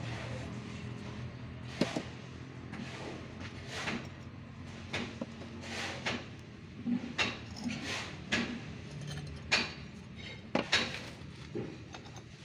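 Steel concrete-block mould being handled, its metal parts giving a dozen or so irregular clicks and knocks, over a low steady hum.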